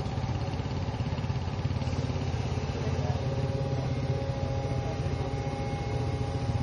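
An excavator's diesel engine running steadily with an even, rapid low pulse. About three seconds in, a steady whine joins it.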